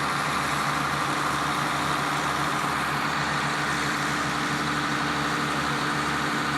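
A motor vehicle engine idling steadily, with a constant low hum.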